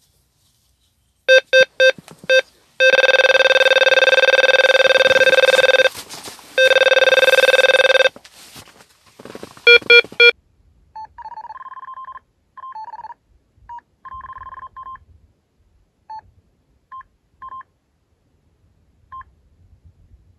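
Fox RX+ carp bite alarm sounding a run. It gives four single beeps, then a continuous tone for about five seconds with one short break, as a fish pulls line off the spool, then a few more quick beeps. After that, a fainter, higher-pitched alarm chirps in short bursts.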